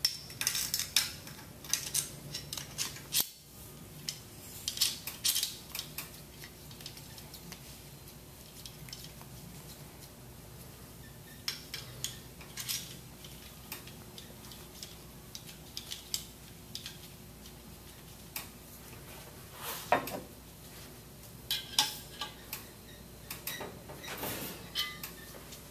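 Stainless steel pump parts and tools clinking and tapping together in scattered sharp clicks as the housing tubes and fittings of a pump motor are handled and fitted. The clicks come thick near the start and again near the end, with a quieter stretch between.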